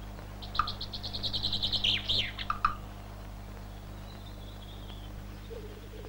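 Black woodpecker calling: a rapid run of high notes lasting about two seconds that drop away at the end, then a fainter short call about four seconds in.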